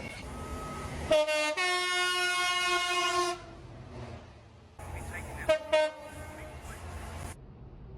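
Train horns sounding: a short blast about a second in, then a long blast of about two seconds, then two quick short toots over a steady rumble later on.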